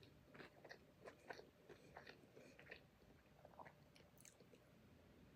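Faint, close-miked chewing: a person eating, with scattered small wet mouth clicks and soft crunches at an irregular pace.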